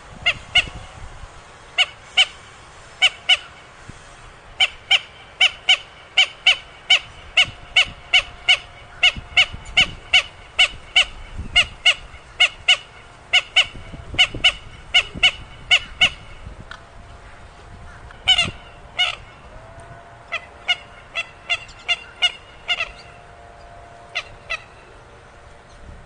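Burung mandar (rail) calling: a long series of short, sharp, repeated calls at roughly two to three a second, breaking off about two-thirds of the way through, then two calls and a further run before stopping near the end.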